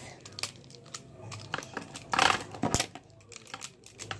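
A handful of colorful plastic pens clicking and rattling together as they are gathered up and handled: irregular light clicks, with a louder clatter about two seconds in.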